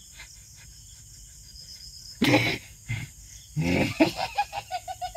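A man's voice bursts out loudly about two seconds in, then breaks into rapid, stuttering laughter near the end.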